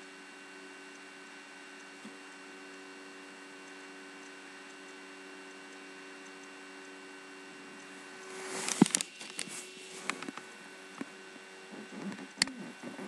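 Steady electrical hum with several tones. About eight seconds in comes a short burst of rustling ending in one sharp knock, then a few fainter clicks and rustles.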